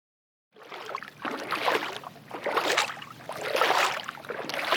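Water sound effect of rhythmic paddling splashes, swelling and falling about once a second, starting about half a second in.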